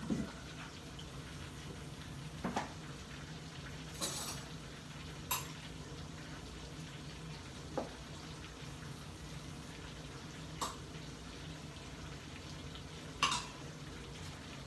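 Spoon and dishes clinking and scraping about seven times, spaced a couple of seconds apart, as guacamole is served onto a plate, over a faint steady hiss.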